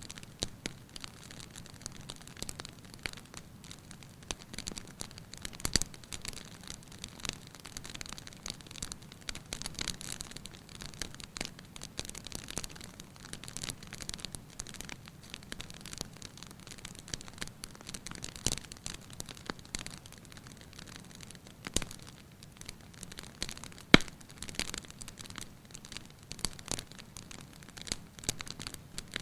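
Wood fire in a fireplace crackling, with irregular snaps and pops and one sharper, louder pop about 24 seconds in.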